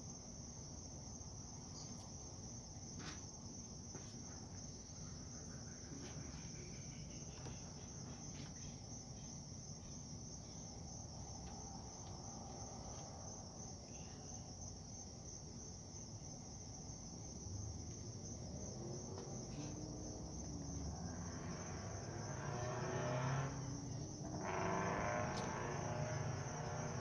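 Crickets chirring outdoors at night, a steady high-pitched trill that never stops, over a low background rumble. The rumble gets louder in the last few seconds.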